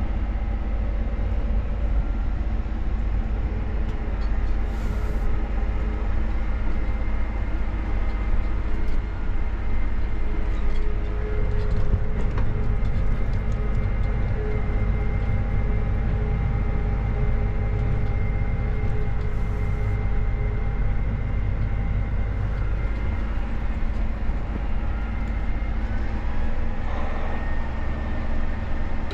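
Diesel engine running steadily under way, a continuous low drone with steady tones; its note shifts near the end.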